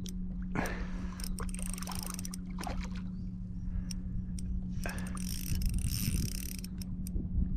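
Water lapping and sloshing against a kayak hull, with scattered sharp clicks and a steady low hum.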